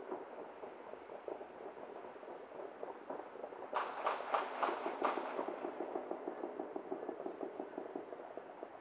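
Distant fireworks and firecrackers crackling without a break. A little under four seconds in, five sharp bangs come in quick succession, about a third of a second apart.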